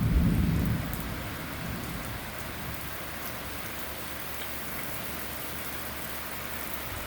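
Heavy rain pouring steadily, with a short low rumble of thunder in the first second.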